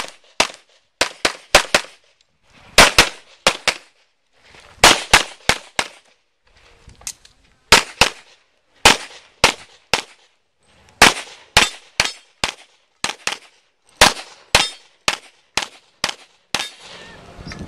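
Handgun shots fired in rapid pairs and short strings during a practical pistol course of fire, with gaps of about a second between groups as the shooter moves to new positions.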